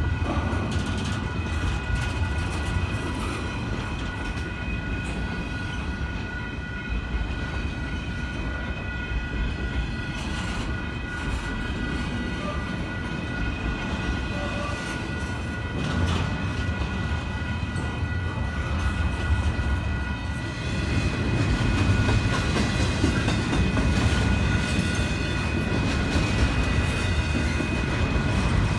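Double-stack intermodal container train rolling past: a steady rumble of wheels on rail with scattered clicks and knocks from the passing cars, and a thin steady high whine over it. It grows louder about two-thirds of the way through.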